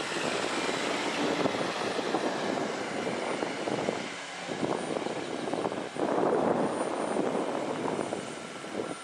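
Steady rushing noise of heavy scrapping work on a steel launch-pad structure. It swells and fades, with a short dip about four seconds in.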